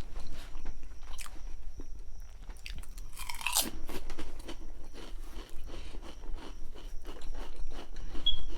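Close-up chewing and biting of a grinder sandwich: moist, crunchy mouth sounds in quick irregular clicks. About three seconds in comes one louder, brief sound that slides down in pitch.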